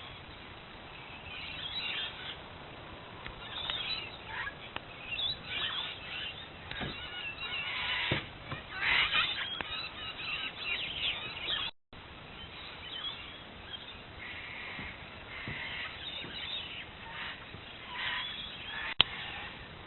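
Birds calling outdoors, many short overlapping calls over a faint background hiss. There is a brief dropout about midway and a single sharp click near the end.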